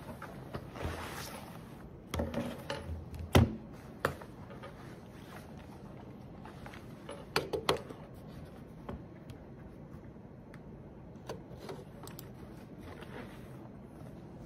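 Laptop being handled: drawn out of its padded sleeve and set down on a wooden desk, with fabric rustling and a few soft knocks, the loudest a little over three seconds in. Smaller clicks follow later as the lid is opened.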